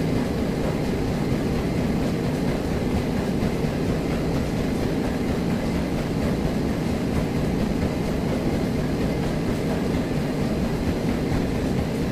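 Steady low mechanical rumble with a hiss over it, even throughout, with no beat or clinks standing out.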